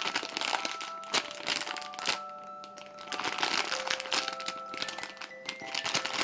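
Clear plastic packaging crinkling irregularly as a squishy in its bag is handled, over background music with long held notes.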